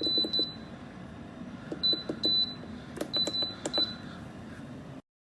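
Digital control panel of an Alpicool portable 12 V car fridge beeping as its buttons are pressed to set the temperature: a series of short, high beeps in small groups, each with a faint click, ending abruptly about five seconds in.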